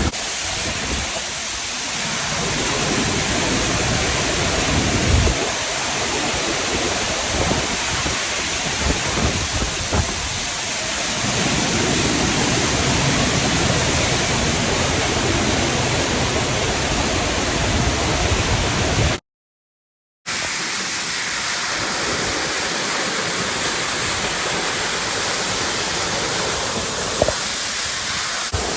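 Waterfall pouring: a steady, dense rush of falling water, broken by about a second of total silence a little past the middle.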